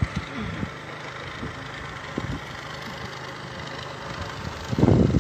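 Fishing boat's engine running steadily at low revs, with a louder burst of noise near the end.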